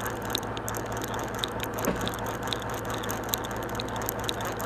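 Conventional saltwater fishing reel being cranked to bring in line, its gears giving short sharp clicks about twice a second. Under it runs the steady low hum of the boat's engine.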